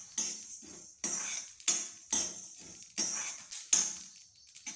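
Spatula stirring whole coriander seeds as they dry-roast in an iron kadhai, the seeds rattling and scraping across the pan in steady strokes about twice a second. The stirring stops near the end.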